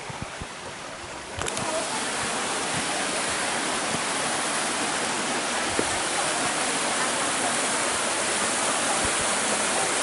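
Steady rush of a mountain waterfall cascading over rocks into a pool. It comes in suddenly about a second and a half in, after a quieter stretch with a few soft knocks.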